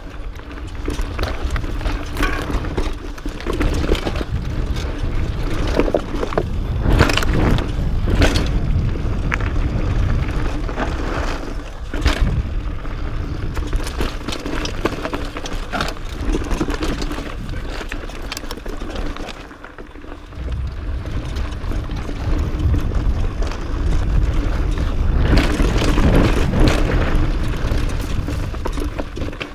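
Mountain bike rolling down rocky dirt singletrack: tyres crunching over dirt and rocks and the bike rattling, with a steady low rumble and frequent sharp knocks as it hits rocks. It eases off briefly about two-thirds of the way through.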